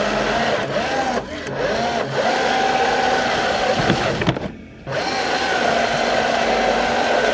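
Remote-control rock crawler's electric motor and gear drive whining as it crawls, its pitch rising and falling with the throttle, stopping for about half a second partway through and then starting up again.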